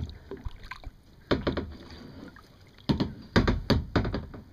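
Kayak paddle strokes: splashing and knocks in a few uneven bunches, the busiest cluster near the end.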